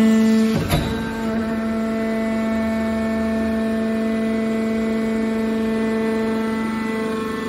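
Hydraulic power unit of a scrap-metal baler running, its electric motor and pump giving a steady pitched hum. A single short knock comes just under a second in.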